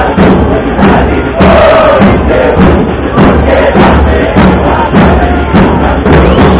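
A large crowd of football supporters chanting a song in unison over a steady drum beat, very loud.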